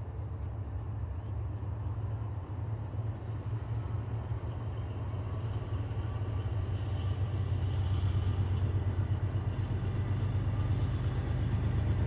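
Diesel freight locomotive approaching, its low engine rumble growing steadily louder as it draws near.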